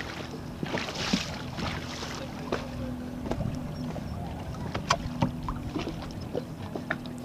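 Sailing dinghy underway: water washing against the hull, with irregular sharp knocks and clicks from the boat's fittings and a steady low hum underneath.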